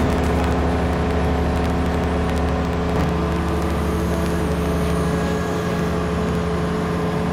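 Light aircraft's single piston engine and propeller running at a steady drone, heard from inside the cabin as the plane rolls along the tarmac. The engine note shifts slightly about three seconds in.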